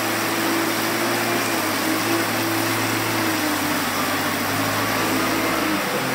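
Compact wheel loader's engine running as it drives with its pallet forks, a steady hum with a whine over it that dips slightly in pitch about halfway through.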